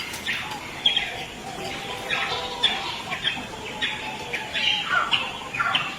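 A baby monkey's distress calls: short, high-pitched squeals repeated several times a second, as it struggles and cannot get free of a coconut.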